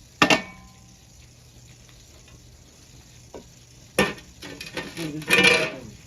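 Two hard strikes on a Harbor Breeze Springfield ceiling fan: a sharp metallic hit with a brief ring just after the start, and another about four seconds in. A person calls out loudly near the end.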